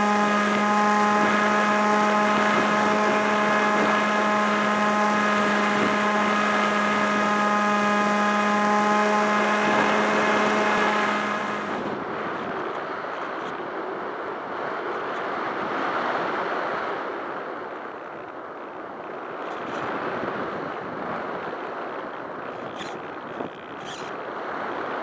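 Multiplex EasyStar RC plane's electric motor and pusher propeller running at a steady pitch, heard from the camera on board. About halfway through the motor cuts off, and only wind rushing over the airframe is left as the plane glides down.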